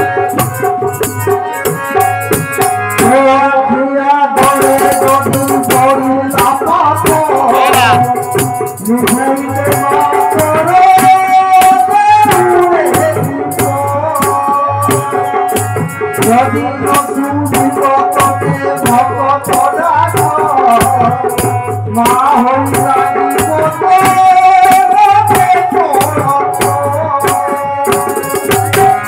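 Devotional bhajan: a harmonium plays sustained tones while a man sings, amplified through a microphone. A drum and a rattling hand percussion instrument keep a steady beat.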